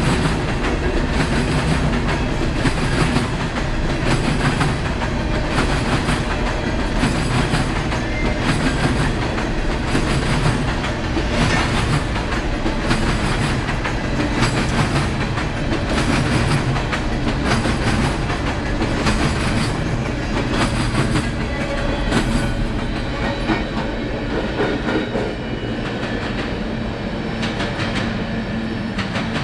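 CSX freight train cars rolling past, their steel wheels clacking over the rail joints in a steady, continuous run.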